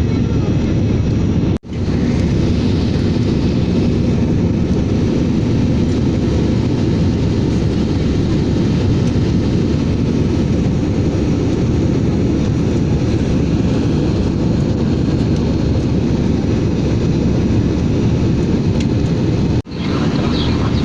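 Airliner cabin noise: a steady, dense rumble of engines and airflow, broken by two very short gaps, about one and a half seconds in and near the end.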